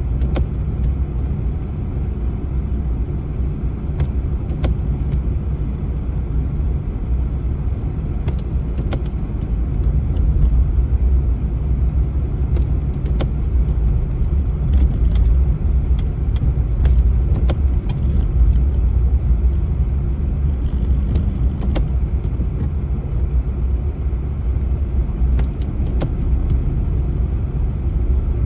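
Car interior noise while driving: a steady low rumble of engine and tyres, with scattered faint clicks and rattles.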